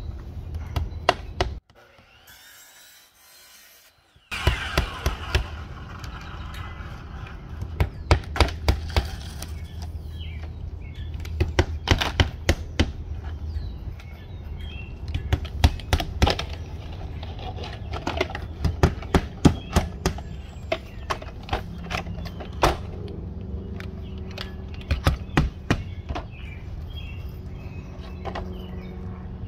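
Hammers driving nails through vinyl siding into the wooden wall, in quick runs of three to six blows with short pauses between, over a steady low hum. The sound drops out briefly about two seconds in.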